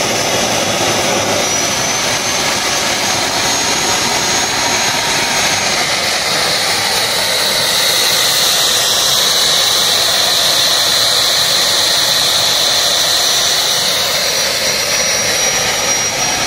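Homemade turbocharger-based turbojet spinning during a start attempt: a loud, steady rush of air with a high turbine whine, a little louder for several seconds in the middle. The homemade starter does not bring it up to idle speed.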